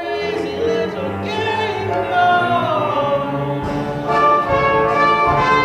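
Show-tune music from a stage musical: band accompaniment with brass, with voices singing along.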